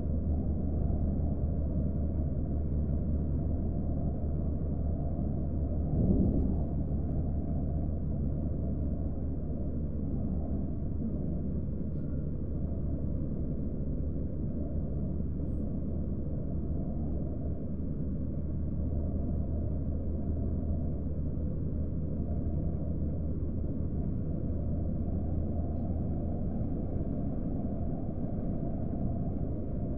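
Steady low road rumble of a car driving at speed, heard from inside the cabin: engine and tyre noise with a constant low hum. There is a single brief thump about six seconds in.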